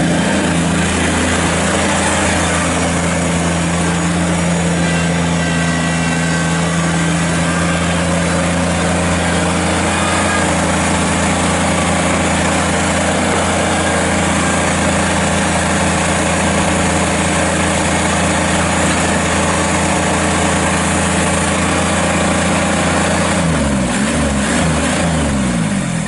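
Kubota BX25D sub-compact tractor's three-cylinder diesel engine running steadily as the loader backhoe drives across gravel. A few seconds before the end the engine note sags and wavers as the speed changes.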